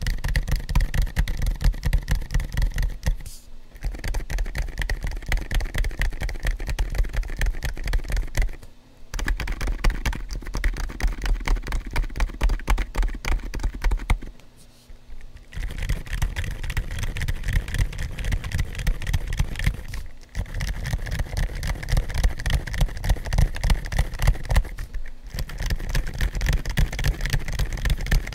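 Fast typing on a GAS67 mechanical keyboard built to be quiet, with Gazzew Bobagum silent switches, PBT keycaps fitted with O-rings, and cork and IXPE-sheet dampening. It comes in runs of a few seconds with short pauses about every five seconds.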